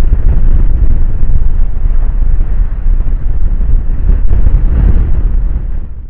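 Strong wind buffeting a phone's microphone in a loud, continuous, uneven rumble, with surf breaking against a sea wall underneath.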